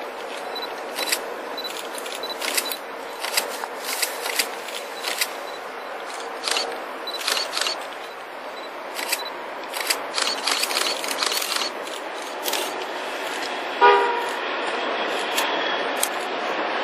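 Freight locomotive's horn sounds one short blast about 14 seconds in, followed by the rising rumble of the approaching freight train. Before that, scattered sharp clicks over a steady hiss.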